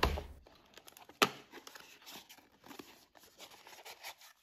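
Cardboard rustling and scraping as a small cardboard box is handled and opened, with one sharp tap about a second in.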